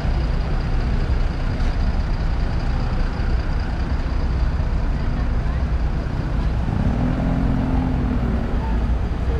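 City street traffic: a steady low rumble of passing motor vehicles, with a brief low drone about seven seconds in.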